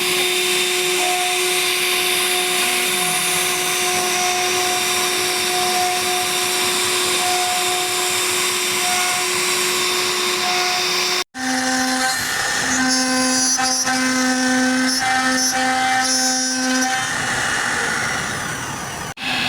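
CNC router spindle running and carving wood: a steady whine over a broad cutting noise. About eleven seconds in the sound cuts off abruptly. It resumes as a lower whine that breaks off and returns several times.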